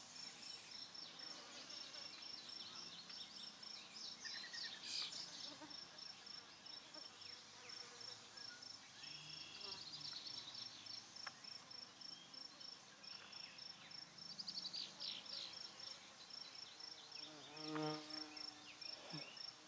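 An insect chirps steadily in rapid, evenly spaced pulses, with scattered short chirps among them. Near the end a bumble bee flies close past the microphone, a brief low buzzing hum.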